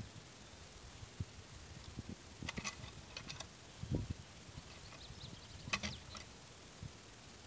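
Cant hook working an oak log: a few sharp clicks of the metal hook biting and knocking on the log about two and a half and six seconds in, with a dull thump about four seconds in as the log is levered over.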